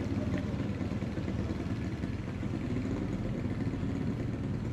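Street traffic: a steady low rumble of vehicle engines on the road.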